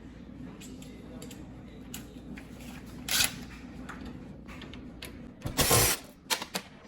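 Dishwasher mounting-bracket screws being worked loose with a hand tool: ratchet-like mechanical clicking. A louder short scrape comes about three seconds in, then a louder clatter with a few knocks shortly before the end.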